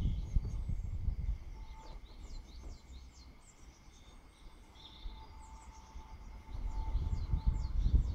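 Small birds chirping and singing over a low, gusting rumble. The rumble fades away in the middle and comes back strongly near the end.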